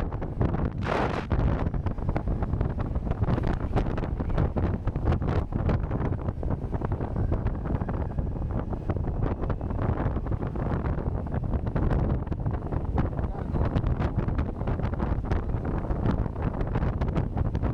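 Heavy wind buffeting the microphone, a loud rough rumble with crackle, from riding an electric motorcycle into a strong wind. A harder gust hits about a second in.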